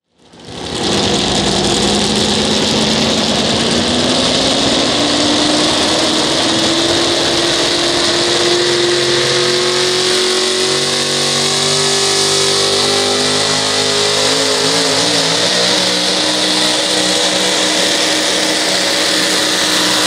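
Supercharged engine of a four-wheel-drive pulling truck, brought up to high revs and held there under load. The pitch climbs over the first few seconds, then stays high and steady, wavering briefly about two-thirds of the way through.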